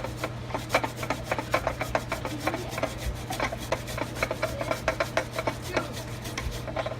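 Quick repeated rubbing or scraping strokes, about four a second, over a faint steady hum.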